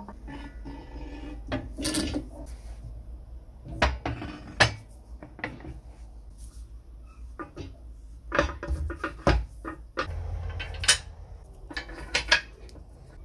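Metal clinks and knocks of a cast-iron washing mangle being put back together: roller shafts seated in the cast-iron frame and fittings handled, in irregular taps with sharper knocks about four and a half and eleven seconds in.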